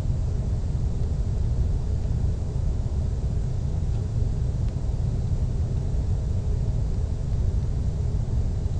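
Steady low rumble of a jet airliner cruising at altitude, heard inside the passenger cabin: engine and airflow noise.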